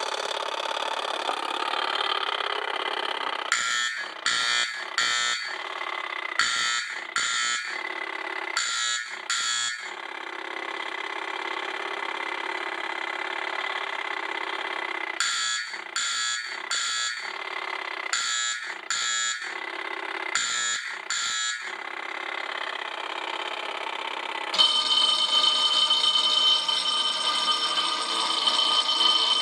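Fire alarm signal from a 1964 Faraday 11016 selective-code fire alarm panel. It sounds continuously, then is broken into a coded pattern of short even strokes in groups. The pattern repeats about twelve seconds later. About twenty-five seconds in, a louder, higher-pitched bell takes over.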